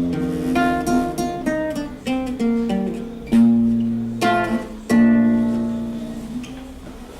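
Acoustic guitar playing chords, struck every half second or so, ending on a final chord about five seconds in that rings on and fades away: the close of a song.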